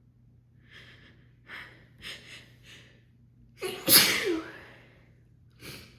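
A woman's sneezing fit: a run of short catching breaths builds to one loud, harsh sneeze about four seconds in, followed by a short breath near the end.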